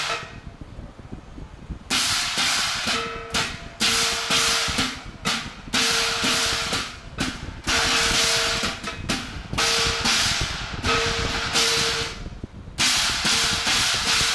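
Qilin dance gongs and hand cymbals crashing in irregular strokes, roughly one a second, each leaving the gong ringing; the strokes start after a short lull of about two seconds.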